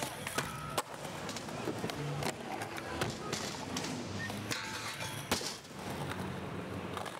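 Skateboard wheels rolling on concrete, with a sharp clack now and then as the board pops and lands.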